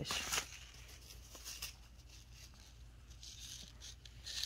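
Small paper seed envelopes rustling as they are handled and shuffled, with a brief rustle at the start and another near the end.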